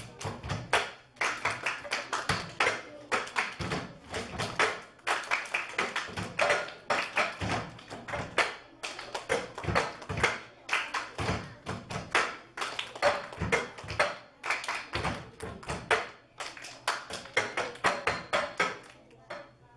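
Cups knocked and tapped on a tabletop in a quick, dense ensemble rhythm, stopping near the end.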